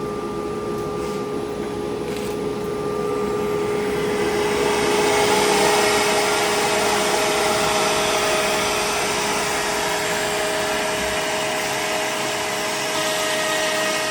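CNC router running a cut on a pre-finished shelf board: a steady spindle whine with machine hiss, growing louder about four seconds in, when a second, higher whine joins it.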